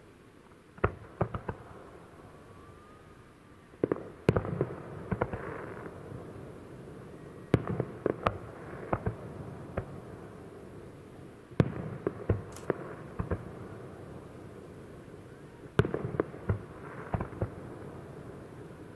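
Aerial fireworks shells bursting in groups about every four seconds, each group a loud bang followed by a few smaller cracks, with a rolling echo after them.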